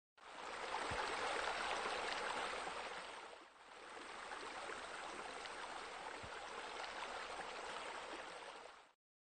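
Pool bubblers splashing water: a steady rushing splash that dips briefly about three and a half seconds in and comes back softer.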